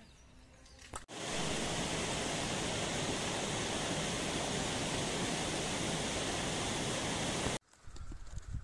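A steady, even rushing noise that starts suddenly about a second in and cuts off abruptly near the end.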